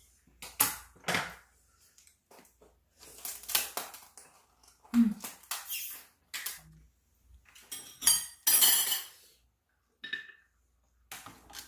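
Dishes and cutlery clinking and clattering at the table in a series of irregular knocks, as utensils hit bowls during a meal.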